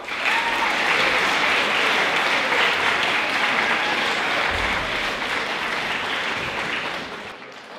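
School assembly audience applauding, starting all at once and dying away near the end.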